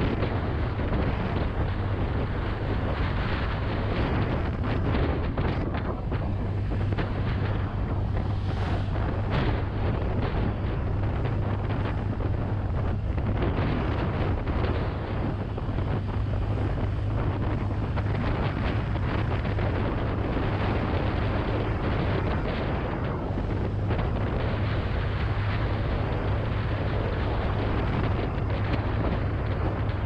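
Wind buffeting the action camera's microphone over the steady running of a Honda Click 125i scooter's single-cylinder engine, climbing uphill with a passenger aboard. The noise stays even, with no distinct knocks or changes.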